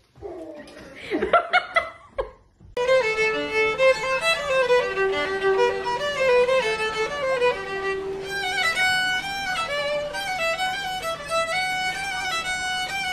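A brief, loud voice-like sound with bending pitch in the first two seconds, then a violin plays a melody, the notes stepping up and down in pitch.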